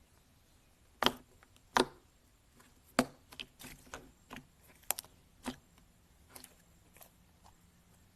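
Slime being pressed and squished, giving sharp sticky clicks and pops: three loud ones in the first three seconds, then a run of softer ones.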